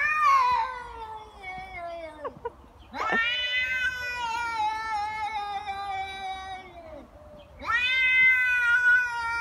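Tabby cat yowling angry threat calls in a standoff with another cat. There are three long drawn-out howls: the first falls away after about two seconds, the second lasts about four seconds and slowly drops in pitch, and the third starts near the end.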